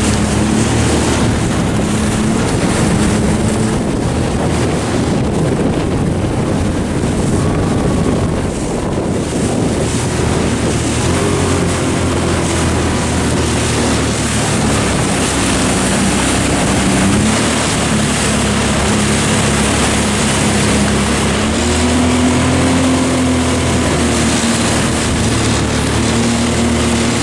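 Motorboat engine running steadily, its hum shifting up and down in pitch a few times, with wind buffeting the microphone and water rushing past the hull.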